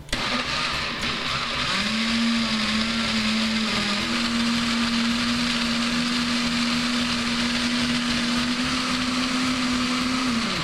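Countertop blender running steadily, blending apples with their peel, egg yolks and water into a liquid mixture. Its motor pitch rises a little about two seconds in, holds steady, then drops as it switches off near the end.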